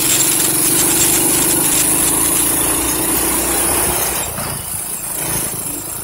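Small vehicle engine running steadily while riding along a road. It eases off and gets quieter about four seconds in.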